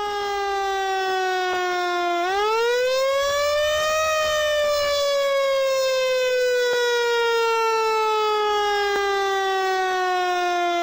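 Fire truck siren in a slow wail: the pitch sinks slightly, climbs quickly about two seconds in to a peak near four seconds, then winds slowly down.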